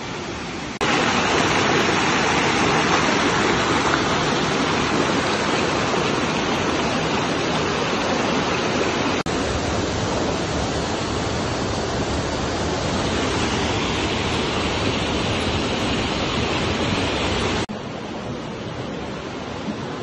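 Steady, loud rush of flowing water from a rocky forest stream near a waterfall. It cuts in suddenly about a second in, breaks for an instant near the middle, and drops off sharply near the end.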